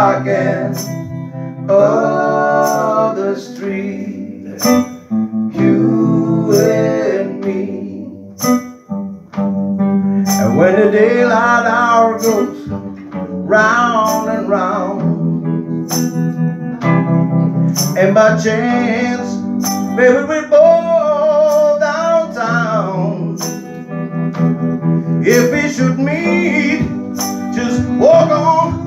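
Live band playing a slow soul ballad: two electric guitars with a man singing long, bending vocal phrases over them. Sharp percussive ticks keep a steady beat.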